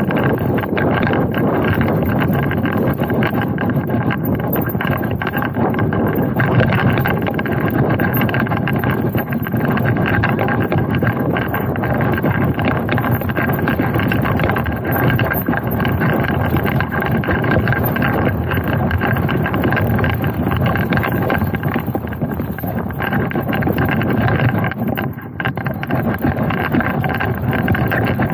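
Electric mountain bike riding down a dirt forest trail: tyres rolling over the ground, with the bike rattling over bumps and wind noise on the microphone.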